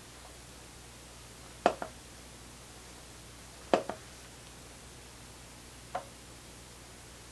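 Front-panel controls of a Slim Devices Transporter network music player clicking as they are worked: a double click about a second and a half in, another double click about two seconds later, and a single softer click near the end, over a faint steady hiss.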